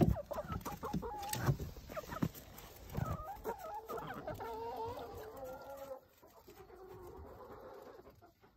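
Several hens clucking and calling as they come out of the coop into the snow, with a few knocks in the first three seconds; the clucking fades down at about six seconds in.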